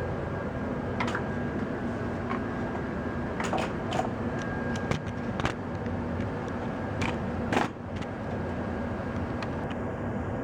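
Tempstar SP80 gas furnace running steadily with a constant low hum. Several sharp clicks and knocks are heard over it, the loudest about seven and a half seconds in.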